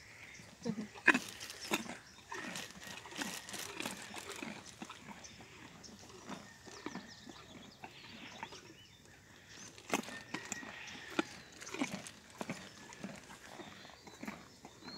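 A donkey chewing food taken from a hand, close to the microphone: a run of irregular crisp crunches, with one sharp loud crack about a second in.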